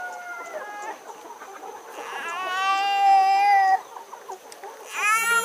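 Hill-chicken roosters crowing. One long crow trails off at the start, a loud drawn-out crow comes about two seconds in, and another crow starts near the end.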